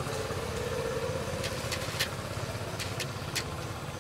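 A steady low rumble like an idling engine, with a faint held hum in the first two seconds and about six sharp clicks in the middle.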